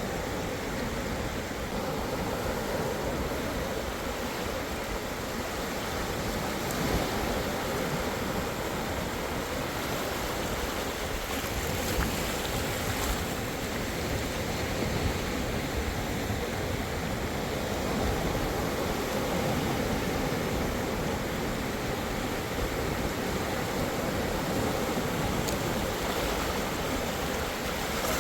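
Steady rush of sea waves breaking and washing on the shore, with wind rumbling on the microphone.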